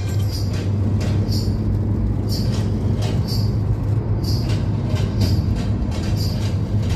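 Steady road and engine rumble heard from inside a moving car, with a short hiss coming back about once a second.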